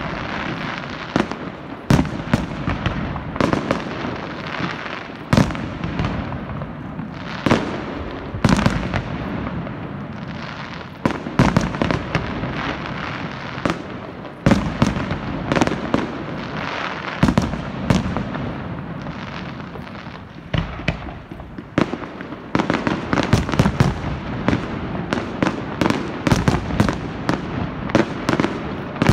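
Fireworks display: shells bursting one after another with sharp bangs over a continuous crackle. The bangs come thick and fast in the last seven seconds or so.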